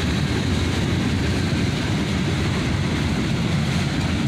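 Freight cars of a CSX manifest train rolling past at steady speed: a continuous low rumble of steel wheels on rail.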